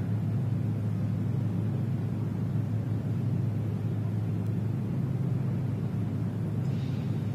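Steady low rumble of ambient city noise inside Big Ben's belfry, with the bells hanging silent and not yet struck.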